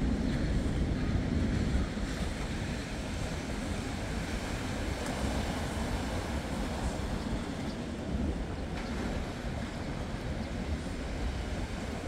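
Heavy surf breaking on a sandy beach: a steady wash and rumble of rough winter waves, a little louder in the first two seconds, with wind rumbling on the microphone.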